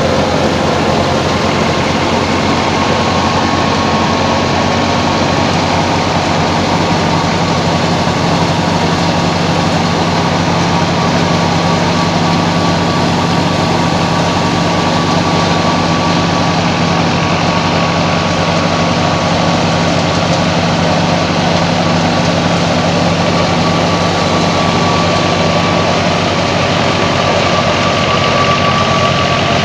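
Fiat 480 tractor's three-cylinder diesel engine running steadily under load, driving a wheat thresher whose machinery adds a dense, even rushing clatter. A thin steady high whine runs over the low engine drone.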